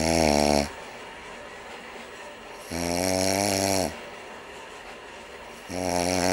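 A man snoring in steady rhythm. Each snore is a buzzing, pitched sound about a second long, and they come about every three seconds, three in all.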